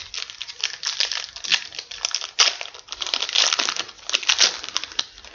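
Trading-card pack wrapper being torn open and crinkled by hand, a dense run of irregular crackling and rustling.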